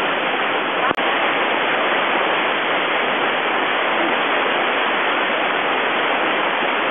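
Whitewater rapid running at 1400 cfs, a steady heavy rushing and churning of water over boulders. There is a brief click and dropout about a second in.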